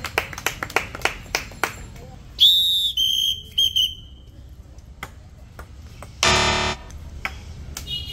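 A ping pong ball bouncing on the game table, a quick run of light clicks in the first two seconds. A loud high whistle sounds about two and a half seconds in, then two short whistle toots. A loud half-second buzzer-like blast comes a little after six seconds.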